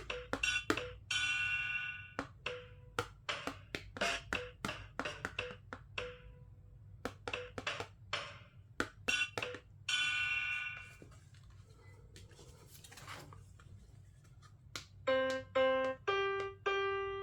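Sampled drum and percussion hits played back by a talking pen, one short sound per tap on a drum picture card. A few seconds of near quiet follow, then single piano notes, one at a time as each key on a piano card is tapped.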